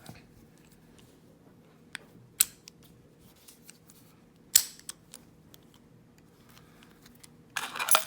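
Sharp metallic clicks of a padlock and small tools being handled: two loud clicks about two and a half and four and a half seconds in, a few lighter ticks, and a brief rattle near the end.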